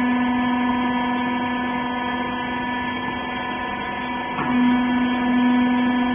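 Wiper rag baler running with a steady, pitched machine hum. About four and a half seconds in the hum wavers briefly and then carries on a little louder.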